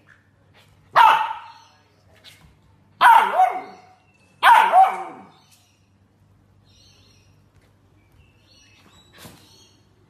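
Samoyed puppy barking three times, about a second in, about three seconds in and about four and a half seconds in, at a small parrot in front of it.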